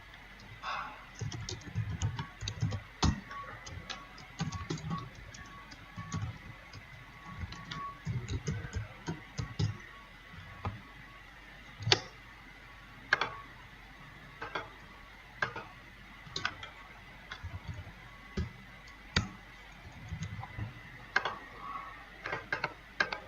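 Computer keyboard typing in short irregular bursts, with single sharp clicks spaced out between them.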